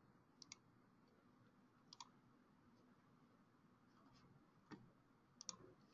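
Near silence broken by a few faint computer mouse clicks, twice in quick pairs.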